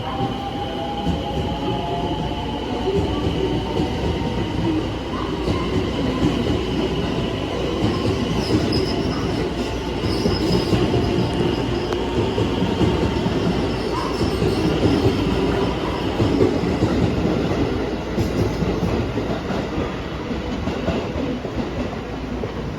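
JR West 223 series electric train running, a steady rumble of wheels on rail with the whine of its electric drive gliding in pitch near the start and a thin high wheel squeal in the middle.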